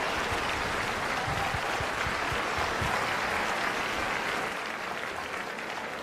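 Audience applauding, easing off a little after about four and a half seconds.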